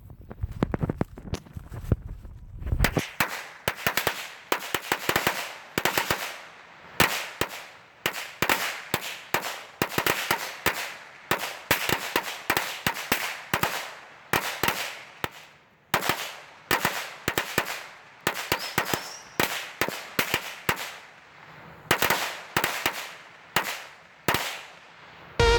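A 100-count strip of Black Cat firecrackers going off: a rapid, irregular string of sharp bangs, some in quick clusters and some spaced out. The bangs start about three seconds in and keep going for some twenty seconds, stopping just before the end.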